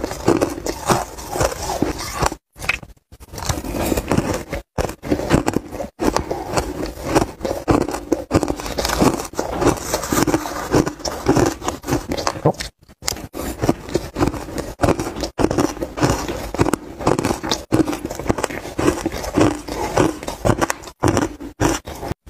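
Close-miked crunching and chewing of mouthfuls of dry, frozen shaved ice, a dense, irregular run of crisp crunches with a few brief gaps.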